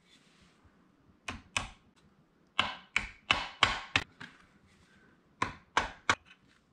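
Hammer tapping on an NP435 transmission's shift fork and rail: about eleven sharp metallic taps in three quick runs, two, then six, then three, each ringing briefly.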